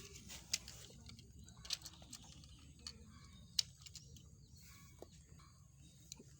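Plastic toy train track pieces and blocks being handled and fitted together: a few faint, scattered clicks and taps, the sharpest about three and a half seconds in.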